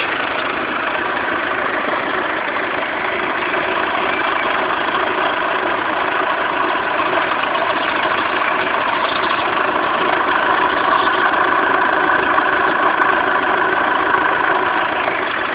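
Renault Laguna 1.9 dCi four-cylinder turbodiesel idling steadily, with the weird chirp that the owner reports coming from the engine.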